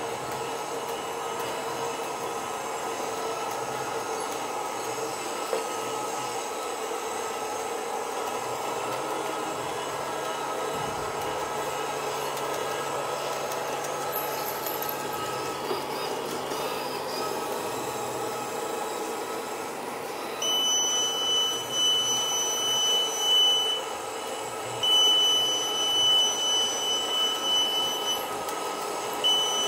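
Small robot floor cleaner running with a steady mechanical whir. About two-thirds of the way through, a high electronic beep starts sounding in long tones of about three seconds each, with short gaps between them.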